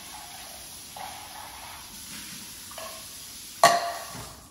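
Kitchen faucet running steadily into a sink while an empty salmon can is rinsed out. About three and a half seconds in, a single sharp metallic clank with a short ring as the emptied can is set down.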